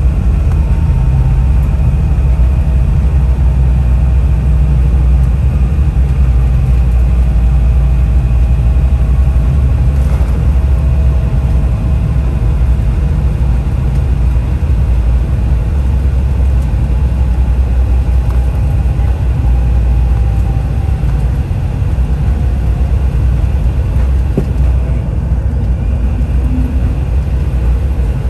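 Steady low rumble inside an Embraer 175 jet's cabin as it rolls along the ground after landing, the twin turbofan engines and wheels making a constant drone with a faint whine above it that drifts slightly in pitch.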